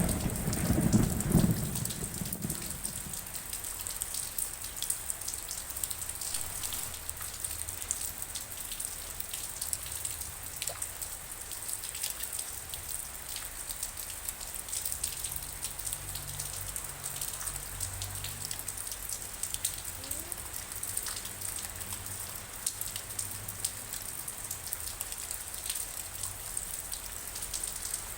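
Steady rain with many separate drops ticking. The tail of a thunder rumble fades away over the first two seconds or so.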